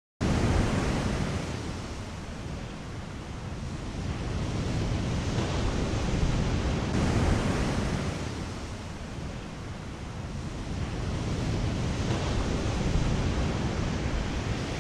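Ocean surf on a beach, a steady wash that swells and ebbs every several seconds, with wind buffeting the microphone. It cuts in abruptly at the start.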